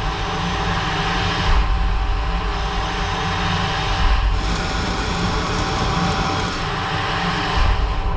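DN Solutions CNC lathe turning a part under flood coolant: steady spindle and machine rumble with the hiss of coolant spray and a thin steady whine. The sound swells briefly about a second and a half in, around four seconds in, and again near the end.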